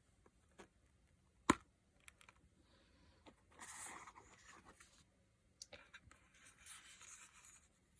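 Quiet handling noise from an eyeshadow palette case being turned over in the hands: one sharp click about a second and a half in, a few faint ticks, and two spells of soft scraping.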